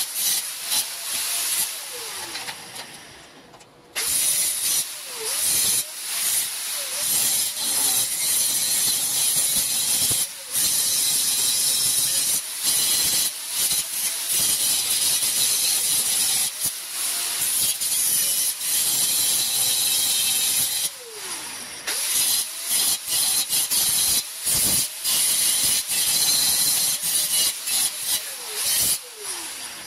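Handheld angle grinder's abrasive disc grinding steel tubing: a steady, high hissing rasp of disc on metal. It fades out about two seconds in, starts again at about four seconds, and breaks off briefly a few more times as the disc is lifted and reset.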